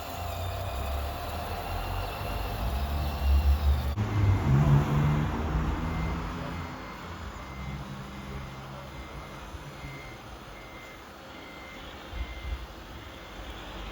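RC truck's reversing beeper sounding about twice a second over the low hum of its motor, after a few heavy thumps in the first seconds.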